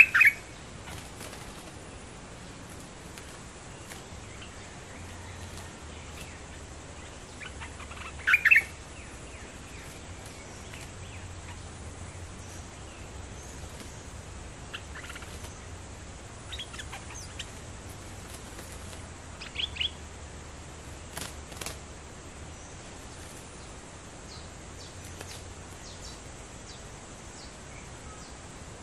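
Bulbul giving short, sharp calls several seconds apart, the loudest right at the start and about eight seconds in, with fainter ones later; a caged decoy bird calling to a wild one.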